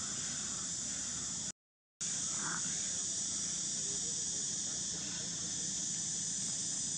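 Steady high-pitched chorus of insects buzzing in the background. The sound cuts out completely for about half a second around a second and a half in. A brief faint squeak follows soon after.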